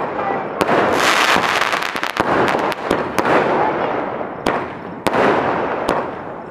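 Multi-shot aerial fireworks cake firing: shells bursting overhead with sharp bangs about once a second, several in quick succession around two seconds in, over steady crackling and hiss from the falling stars.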